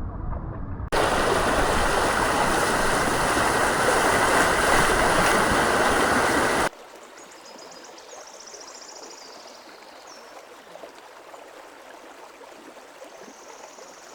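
Rushing river water, loud and full for about the first six seconds, then cutting suddenly to a quieter, thinner stream sound. Faint high-pitched chirps are heard over the quieter part.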